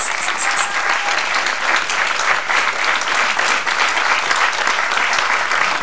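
Audience applauding: dense, continuous clapping from many people.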